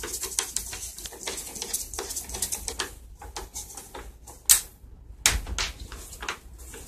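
Irregular small clicks and taps of a T27 Torx driver turning out the screws that hold a leaf blower's plastic handle, with two sharper clicks a little past halfway.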